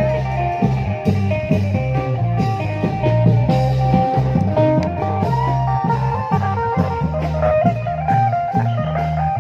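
Lively band music from a klong yao procession band: a plucked guitar melody moving in short steps over a stepping bass line, with steady drum strokes.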